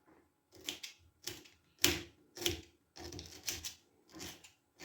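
Kitchen knife chopping roasted, peeled ginger on a cutting board: a series of sharp chops, roughly one every half second.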